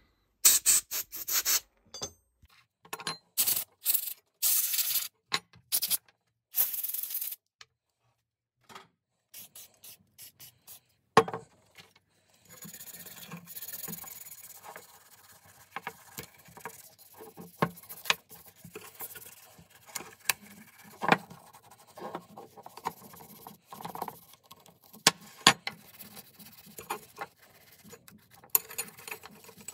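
Hand work on an old Bahco adjustable wrench, rubbing and scraping at the metal. It opens with a run of loud, short hissing strokes, then after a pause goes on as quieter, steady rubbing with scattered small clicks.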